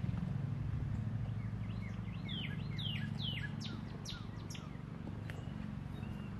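A songbird sings a quick run of about eight downward-slurred whistled notes, starting about two seconds in, over a steady low hum.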